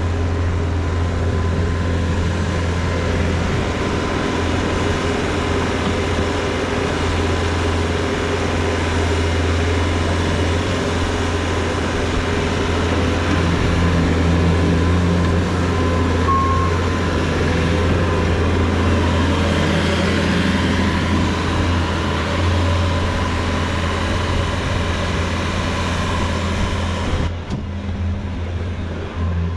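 Dump truck engine running steadily under way: a continuous low drone with road and engine noise over it.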